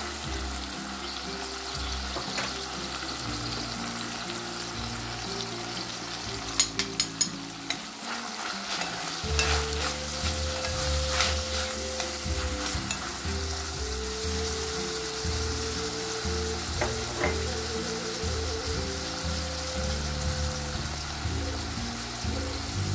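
Sliced mushrooms sizzling as they fry in oil in a glass casserole pot, stirred with a metal utensil. The utensil scrapes and clicks against the glass, with a quick run of clicks about six and a half seconds in.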